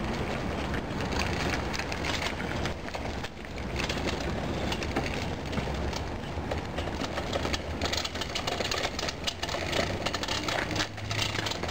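Small caster wheels of a Gait Harness System walking frame rolling over rough asphalt: a steady gritty rattle full of small clicks, with a low rumble underneath.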